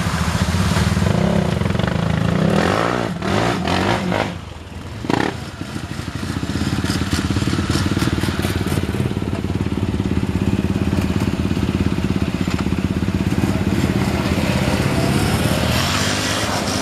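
Four-wheeler ATV engine running hard and revving as it spins its wheels through deep mud, with mud and water spraying. The engine sound drops briefly about four seconds in, then picks back up and holds steady.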